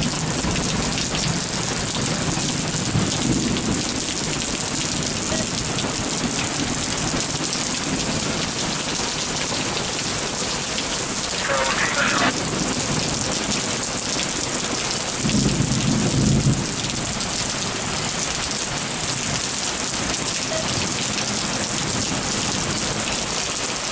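Heavy rain pouring steadily. A short low rumble of thunder comes about fifteen seconds in, lasting a second and a half.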